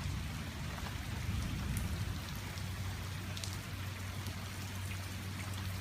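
Heavy thunderstorm rain falling steadily, with scattered sharper drops striking close by. A low steady hum runs underneath from about two seconds in.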